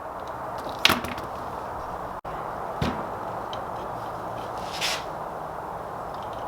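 Hand work on a part: a sharp click about a second in, a dull knock near three seconds and a short scrape near five seconds, over a steady hiss.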